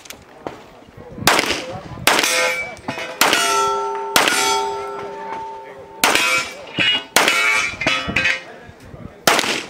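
A string of pistol shots about a second apart. Several hits on steel targets ring out with a clear metallic ring that lingers for a second or more.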